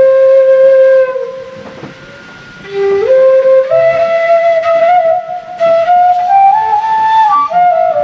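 Bamboo transverse flute (bansuri) played solo: a held note, a short lull, then a melody that climbs in steps from a low note, dipping briefly near the end.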